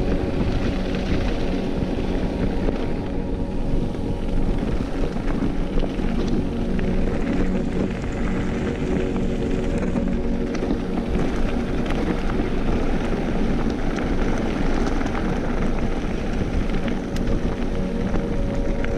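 Mountain bike rolling fast down a gravel forest track: a steady noise of tyres on loose gravel and wind on the camera microphone, with many small rattles and clicks.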